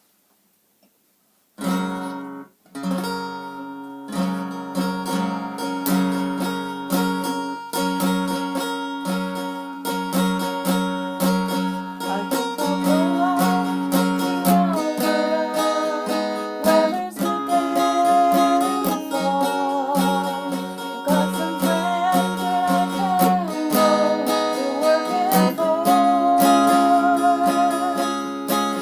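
Acoustic guitar strummed in a steady rhythm, starting after a moment of silence. A singing voice joins the guitar about twelve seconds in.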